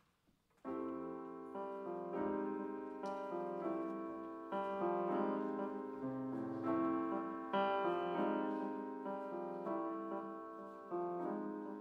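Solo grand piano, starting under a second in, playing slow chords that are struck about once a second and left to ring.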